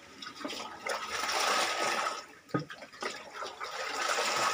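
Floodwater being poured out of a plastic bucket, splashing onto a flooded floor. There are two long pours, with a short knock between them.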